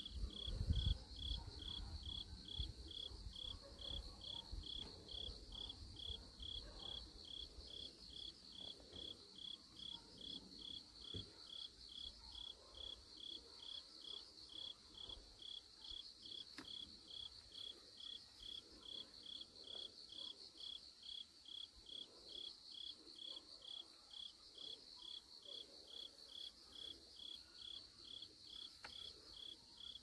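A cricket chirping steadily, about two chirps a second, with a fainter, faster pulsing insect sound higher up. A faint low rumble in the first few seconds.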